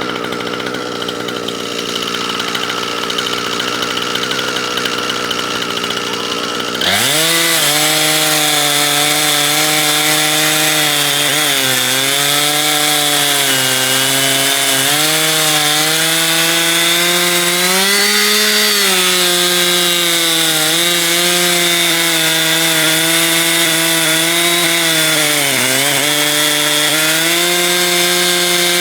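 Chainsaw on an Alaskan chainsaw mill, idling, then opened up to full throttle about seven seconds in and held there while ripping along a log. The engine pitch sags briefly several times as the bar loads up in the cut.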